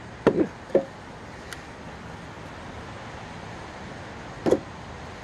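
A few sharp clacks of hard plastic vacuum parts knocking as they are handled, over steady background noise.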